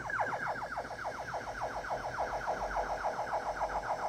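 Musicson mixer's analog tape delay repeating a falling synth tone as a fast, even train of echoes, about ten a second. Each echo is a short downward blip, and the train fades only slowly as the delay's feedback keeps regenerating it.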